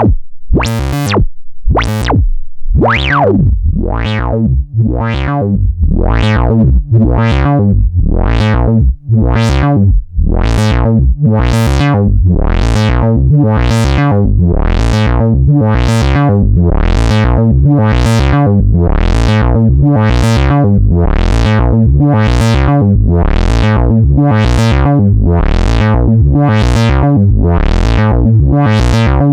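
Eurorack synthesizer: a Morphing Terrarium E350 oscillator running through a voltage-controlled filter, its cutoff swept open and shut by an LFO about once a second, giving a rhythmic 'wah' over a steady low drone. The sweeps are uneven for the first ten seconds or so, with a few brief dropouts, then settle into a regular pulse.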